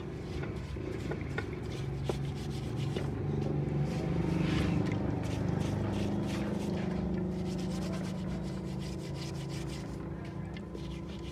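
Hand brush scrubbing the soapy, grimy engine casing of a Honda CD70 in quick scratchy strokes. A low hum swells in the middle and fades under the scrubbing.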